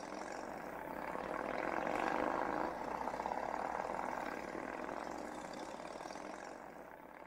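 Motor vehicle sound effect: an engine-and-road rumble that swells up over the first two or three seconds and then slowly fades away, like traffic going by.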